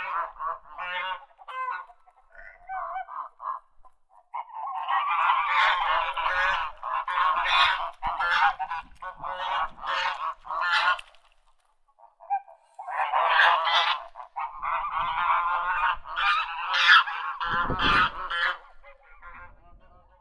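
A group of ducks quacking, many calls overlapping in two loud spells with a short lull about halfway through. A brief low rumble sounds near the end.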